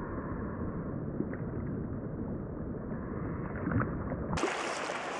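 Steady rush of flowing river water, muffled and rumbling at first, then changing abruptly about four seconds in to a brighter, clearer hiss.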